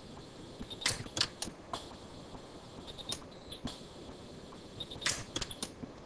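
Orion pulse-arc dental welder firing short weld pulses onto a dental bridge: sharp snapping cracks, about ten in all, in three quick bunches.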